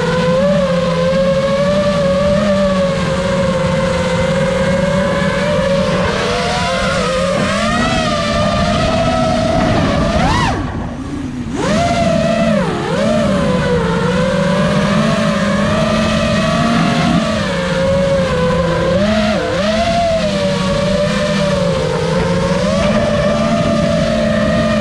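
FPV quadcopter's brushless motors and propellers whining, the pitch wavering up and down with throttle. About ten and a half seconds in the throttle is cut for about a second, then the whine sweeps back up.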